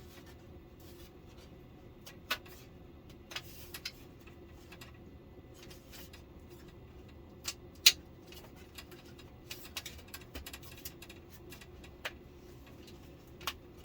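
Scattered light clicks and taps as new LED backlight strips and their plug-in connectors are handled and fitted into a flat-screen TV. The sharpest click comes about eight seconds in, over a faint steady hum.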